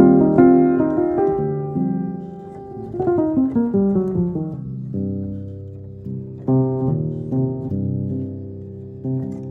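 Instrumental background music: pitched notes struck in groups, with a falling run of notes about three seconds in.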